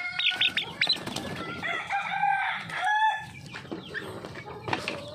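A flock of chickens clucking and calling, with many quick high-pitched calls and two longer, drawn-out calls about two and three seconds in.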